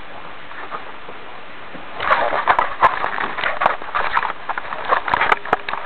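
Rustling and irregular knocking and scraping from the camera and its microphone being handled, starting about two seconds in after a quiet hiss.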